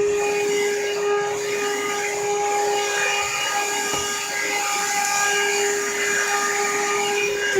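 Vacuum cleaner running steadily as it cleans the stairs, its motor giving a constant whine over the rush of suction.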